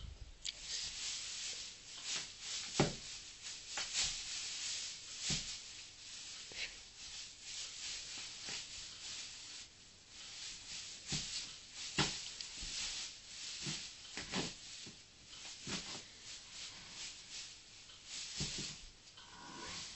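A sleeping horse stirring and kicking in its bedding while dreaming: irregular rustling scrapes with occasional soft thuds, coming every second or so.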